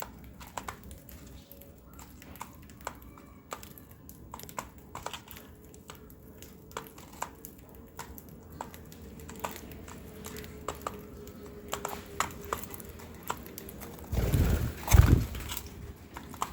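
Lovebird's beak cracking seeds and pecking, a string of sharp, irregular clicks and taps. A loud low rumble, like a bump, comes near the end.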